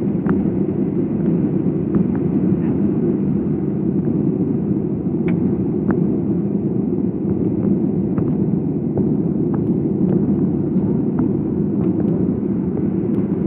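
Cabin noise inside a Boeing 737-800 taxiing after landing: a steady low rumble from its CFM56-7B jet engines at idle, with faint scattered clicks.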